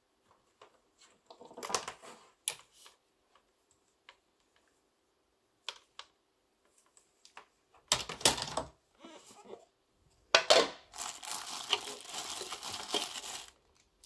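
Plastic parts of a small ultrasonic cleaner being handled: scattered clicks and taps, a louder knock about 8 seconds in, then a few seconds of plastic rustling as the clear lid and inner basket are lifted out of the stainless tank.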